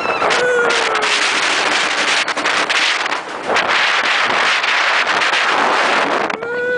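Wind buffeting the microphone of an onboard camera on a steel roller coaster as the train crests the lift hill and plunges down the first drop: a loud, constant rush broken by rapid thumps. A short pitched wail is heard about half a second in and again near the end.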